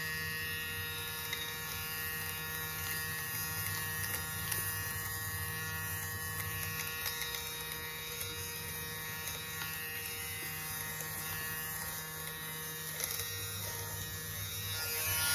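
Electric lint remover (fabric shaver) running with a steady buzzing hum as it is moved over pilled fleece fabric, its spinning blades cutting off the fuzz, with a few faint ticks.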